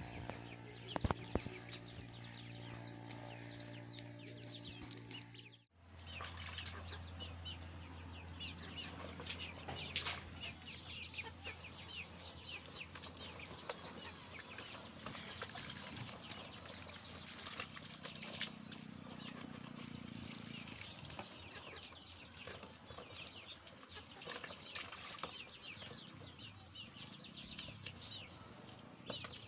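Chickens clucking, with hands rubbing and cleaning charred goat meat in a plastic basin.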